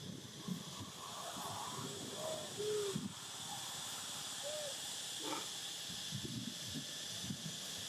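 Outdoor ambience: a steady high hiss with three or four short, soft calls a couple of seconds in and light rustling.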